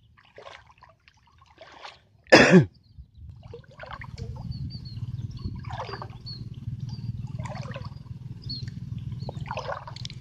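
Footsteps squelching and sloshing through mud and shallow water, over a steady low rumble. One short, much louder sound comes about two and a half seconds in.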